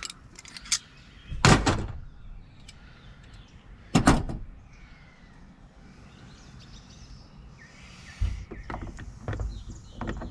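Metal clicks and clunks from a Baldwin mortise lock's parts being handled and worked: two loud clunks, about one and a half and four seconds in, then a run of lighter clicks near the end.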